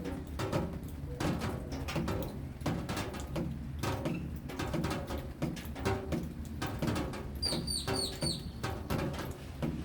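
Raindrops dripping and tapping in a dense, irregular run of small knocks. About seven and a half seconds in, a small bird gives four quick, high, falling chirps.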